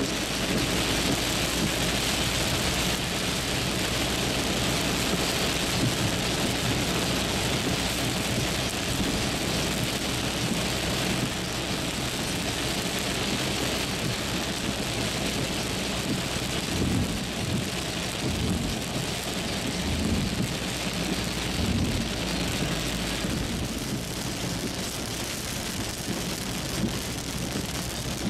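Heavy rain hitting a moving car's roof and windscreen, heard from inside the cabin as a steady hiss, with road and tyre noise underneath. It eases slightly near the end.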